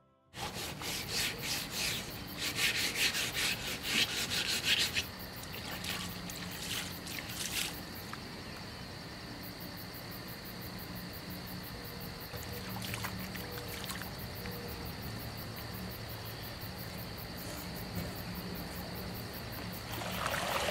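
Rough scraping and rubbing strokes for the first five seconds or so, then a steady high insect drone. Near the end a plastic kayak hull scrapes over the sandy shore as it is pushed into the water.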